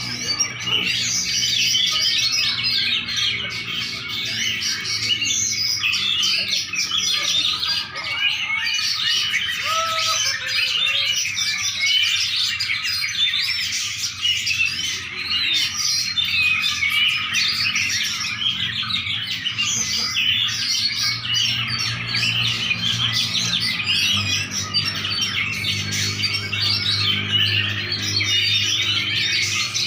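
A songbird singing a rapid, continuous twittering song of dense high chirps and trills without pause.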